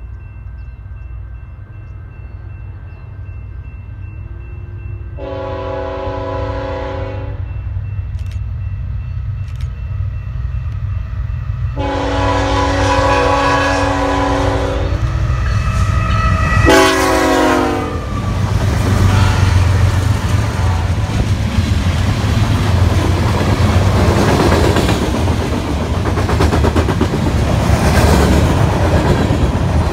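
A train approaching and passing: its locomotive horn sounds a chord in two long blasts and then a short one, the short one dropping in pitch as the locomotive goes by. Then the loud rumble and clickety-clack of the passing train.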